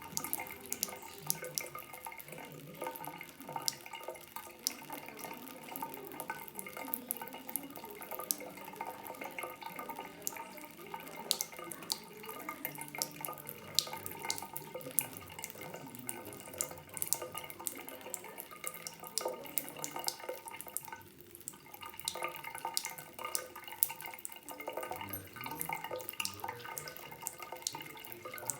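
Thin stream of water running from a tap into a washbasin, with frequent small, sharp splashing ticks as a cat laps at the water.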